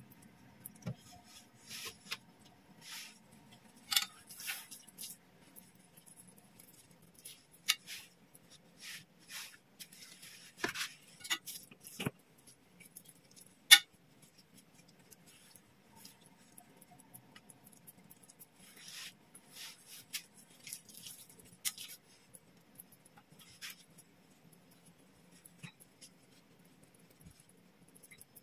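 Hands filling and folding siomai wrappers on a wooden cutting board: soft rustles and light taps of the wrappers and filling, with a few sharp clicks, the loudest about halfway through.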